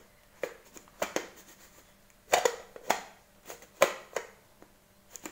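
Plastic lid of a pull-cord vegetable chopper being fitted and twisted shut onto its clear plastic bowl: about ten short, sharp clicks and knocks at irregular intervals.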